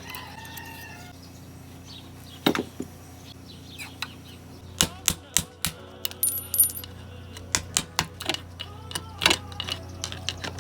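Metal clinks and knocks from hand tools and metal parts while a water heater's gas control valve is taken apart: a few scattered taps, then a run of quick sharp clicks from about halfway in, one with a brief high ring.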